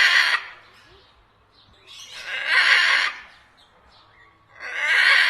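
A parrot squawking: loud, harsh calls about two and a half seconds apart, one dying away just after the start, a full one lasting about a second in the middle, and another starting near the end.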